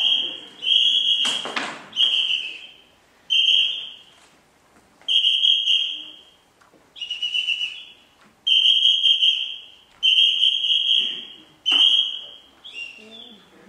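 A clown's whistle blown in a string of short blasts, about nine in a row, each a steady high tone, one wavering in pitch about seven seconds in. A sharp knock sounds between blasts about a second and a half in.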